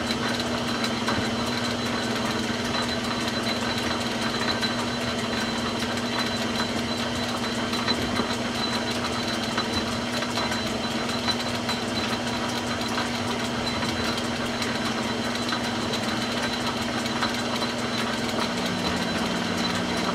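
Metal lathe running at slow speed under power feed for thread-cutting, a steady motor and gear hum with a thin high whine, while the threading tool takes a light pass on the rifle barrel. A second, lower hum joins near the end.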